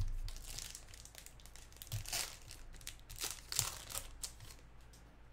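Wrapper of a 2020 Topps Heritage baseball card pack being torn open and crinkled by hand, in several irregular bursts of crackling, the loudest about two and three and a half seconds in.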